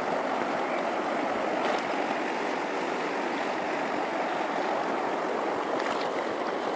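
Fast-flowing river rushing steadily over stones.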